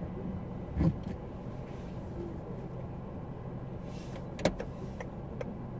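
Car cabin at a standstill with the engine idling as a steady low hum; a dull thump about a second in and a sharp click past four seconds. Near the end the turn-signal indicator starts ticking, about two and a half ticks a second.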